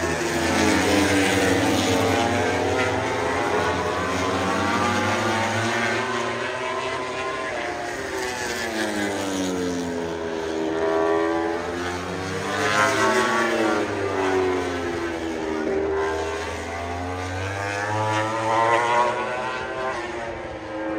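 Propeller aircraft engine droning as it flies past and turns, its pitch slowly sweeping down and up several times, with louder swells about two-thirds of the way through and near the end.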